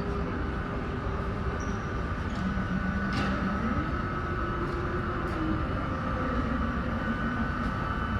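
Boeing 757-300's Pratt & Whitney PW2000 turbofans running at low power as the jet taxis in to the gate: a steady rumble with a steady high whine over it, and a lower tone that rises and falls a few times.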